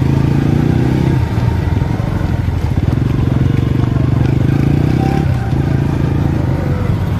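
Motorcycle engine running while riding, a steady pulsing exhaust note that eases off briefly about a second in and again about five seconds in.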